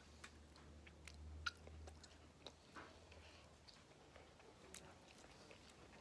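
Faint chewing of a slice of well-baked wood-fired pizza, with scattered small crunchy clicks as it is bitten and chewed.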